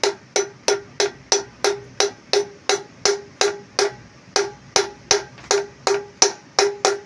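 Hammer tapping steadily on metal, about three even strikes a second, each with a short metallic ring. The strikes drive a 6302 ball bearing, shimmed with galvanized sheet, into a worn aluminium brake-drum hub.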